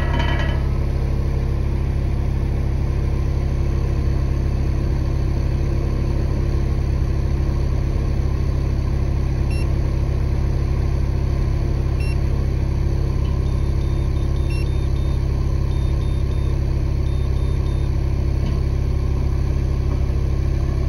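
An engine idling steadily, its exhaust used to raise the carbon monoxide reading on two handheld CO detectors. Faint short high beeps come in a few groups about halfway through, from the detectors' CO alarm.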